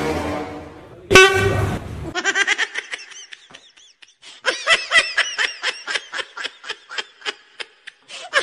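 A loud trumpet-like horn blast sound effect, sharpest about a second in, followed by a long run of quick, pitched laughing pulses, a laugh sound effect.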